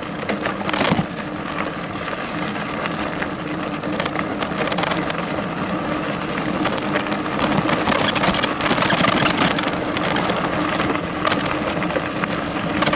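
Loaded bikepacking bicycle rolling over a rough, stony track: steady tyre noise with many small rattles and knocks from the bike, busiest around the middle.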